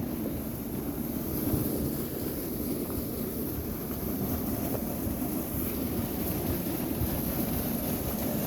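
Wind buffeting the microphone outdoors: a steady, fluttering low rumble with a faint hiss above it.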